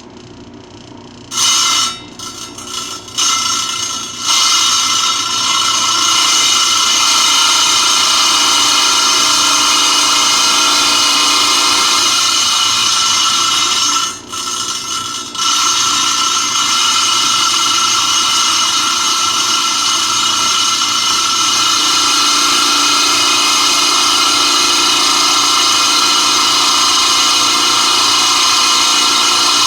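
Lapidary trim saw's diamond blade cutting through a rock clamped in the saw's vise: a loud, steady, high-pitched whine. It starts about a second in, comes and goes in short bursts for a few seconds, then runs steadily, dropping away briefly about halfway through.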